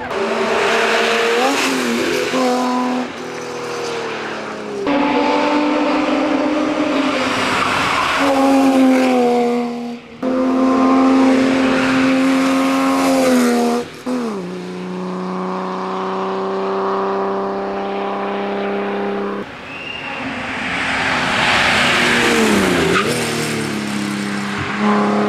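BMW hill-climb car's engine running hard under race driving, its note holding and stepping in pitch, with brief sharp dips at gear changes every few seconds. Tyre squeal comes in at times.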